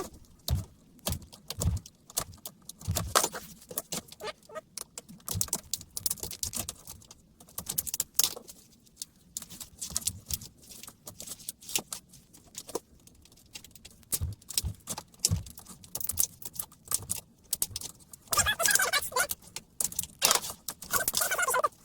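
Irregular clicks, taps and scrapes of hard plastic and metal as a laptop battery pack is worked apart by hand to get at its 18650 cells, with a denser stretch of scraping about three-quarters of the way through.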